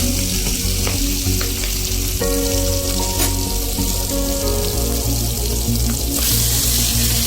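Marinated chicken pieces sizzling as they fry in hot oil in a kadai, a steady dense hiss.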